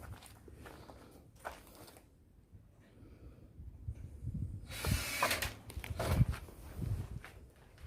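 Scattered clicks and knocks of tools and metal parts being handled, with a short rushing hiss about five seconds in and a few dull thumps after it.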